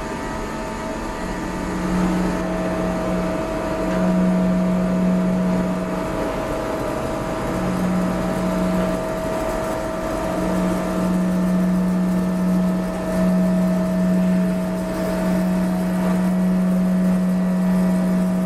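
Steady hum of a powered-on Boehringer VDF 400 CM CNC lathe, with a low tone that cuts in and out several times and then holds steady from about ten seconds in.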